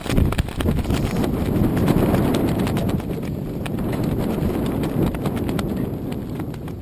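Choppy water lapping and slapping against the hull of a moored floating clubhouse, with many irregular small knocks and clicks over a steady low rumble of wind and water on the microphone.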